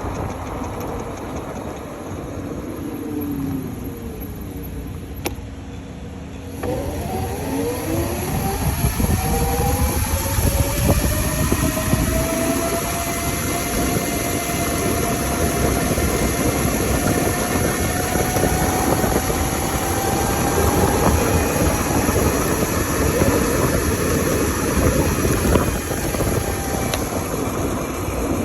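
Modified Razor RSF650 electric mini moto being ridden: the motor's whine falls as it slows, then climbs sharply as it accelerates from about six seconds in and holds at a high pitch, over steady road and wind noise.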